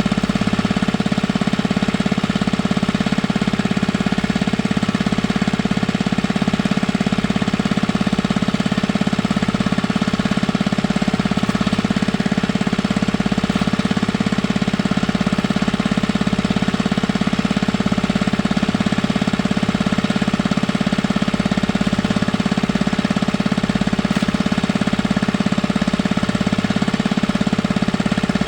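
Small engine running steadily with a rapid knocking beat, unchanging throughout.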